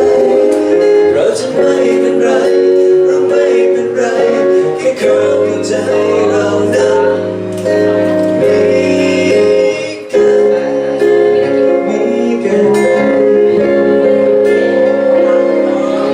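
Live band music with singing and guitar: a song played through amplified speakers.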